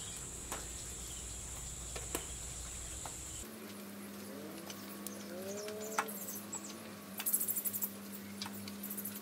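Quiet outdoor background: a steady high insect drone that cuts off about a third of the way in, a few faint rising bird calls, and scattered light clicks.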